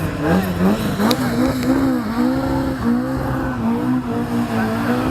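Rally car engine revving: its pitch climbs and wavers through the first couple of seconds, then is held high and fairly steady.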